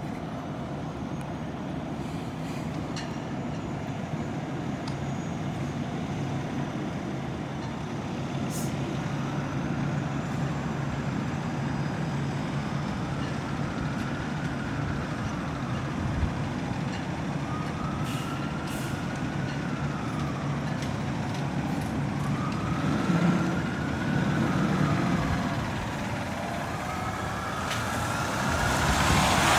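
A 2017 Spartan Gladiator/Smeal pumper fire engine's diesel engine runs steadily as it pulls out of the station. From about a third of the way in, a siren wails faintly in slow rising and falling sweeps, every two to three seconds. Near the end the sound swells into a loud hiss as the truck comes out onto the street.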